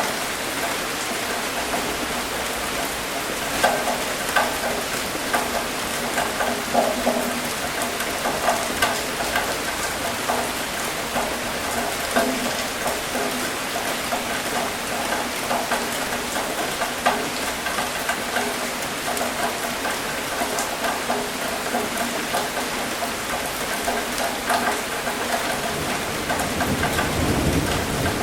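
Steady rain falling on a surface, with many separate drops ticking through it. A low rumble of thunder builds near the end.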